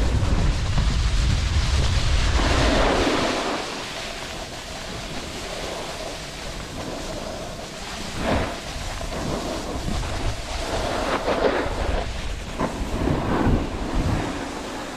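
Snowboard sliding over hard-packed, tracked piste snow, its base and edges scraping and hissing, with wind buffeting the GoPro's microphone. The wind rumble is heavy for the first few seconds, then eases, and several short, sharper edge scrapes stand out in the second half.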